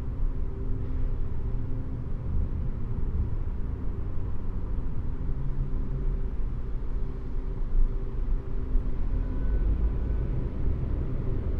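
Room tone of an empty concert hall: a steady low rumble with faint humming tones that come and go.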